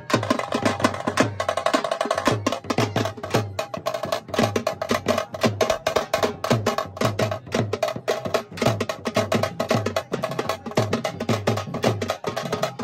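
Teenmaar drumming: fast, dense drum strokes over a steady, repeating deep beat.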